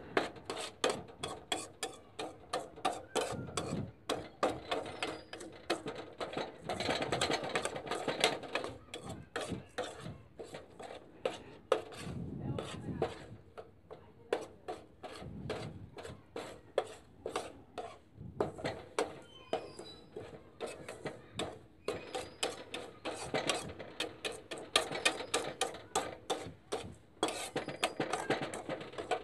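Metal spoon scraping and knocking against a pan as dry, roasted mustard-seed cake grains are stirred in it, a quick run of scrapes, a few a second.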